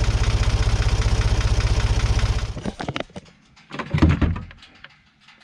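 Side-by-side utility vehicle's engine running with a steady, even throb, stopping a little before halfway through. A few short knocks follow.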